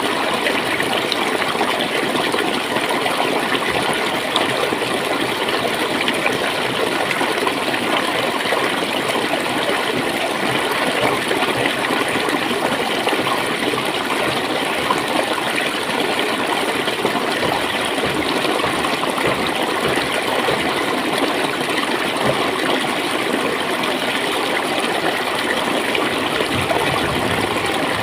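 Clear stream water running and gurgling over stones in a steady, unbroken rush.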